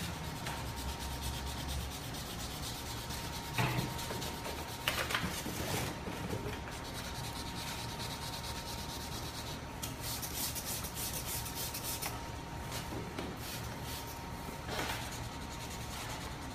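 Hand wet-sanding of a car's painted bumper with a sanding block: continuous rubbing strokes of abrasive on the wet paint, the first sanding stage of a spot repaint to take down the damaged area.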